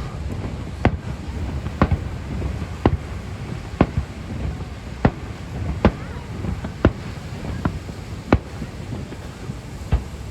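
Fireworks going off in a steady series, a sharp boom about once a second, over a constant low background noise.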